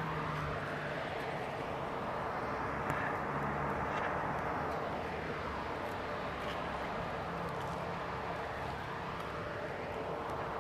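Steady rushing noise of distant engines passing, with slow sweeping rises and falls in pitch.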